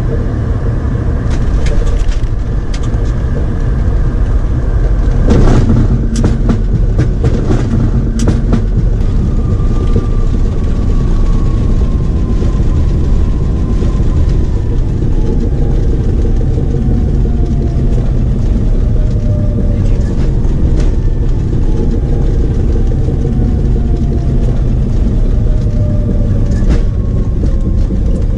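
Airliner cockpit noise through touchdown and rollout after an automatic landing: a loud, steady rumble of the engines and the wheels on the runway, with a series of knocks and clatters in the first eight seconds, loudest about five seconds in. From about nine seconds a thin whine slowly falls in pitch as the aircraft slows.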